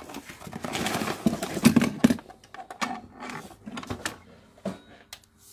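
Plastic telephone casing being handled and turned over in the hands: a run of knocks, clicks and rubbing, busiest a second or two in, then thinning out.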